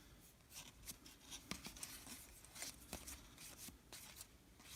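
Faint, irregular soft clicks and rustles of baseball trading cards being slid and flipped one by one in the hands.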